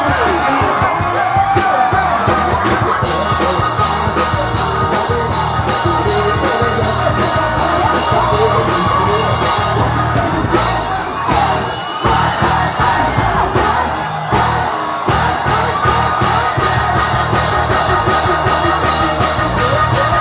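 Loud music with singing and shouted voices over it.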